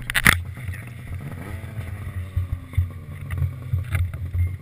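Two-stroke snowmobile engines idling with a low, pulsing note. There is a sharp knock about a quarter second in, and about a second and a half in an engine revs up, its pitch rising and then holding. Light wind buffets the microphone.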